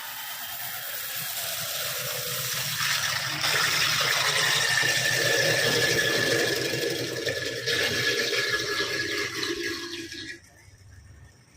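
Handheld electric power tool running under load, its motor giving a steady whine over a rough grinding noise, then stopping abruptly about ten seconds in.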